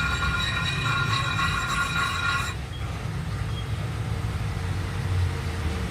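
Workshop machinery running: a steady high whine that cuts off about two and a half seconds in, over a continuous low rumble.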